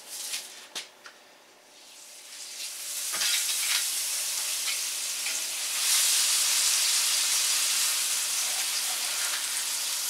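Thick seasoned rib eye steaks searing in hot avocado oil in a cast iron skillet, set in with tongs. After a few light knocks at the start, the sizzle builds from about two seconds in and grows louder around six seconds in.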